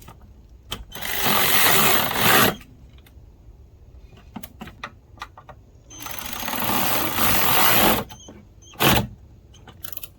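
A power tool running in two bursts of a rapid mechanical rattle, each about one and a half to two seconds long, with a shorter burst near the end and light clicks in between.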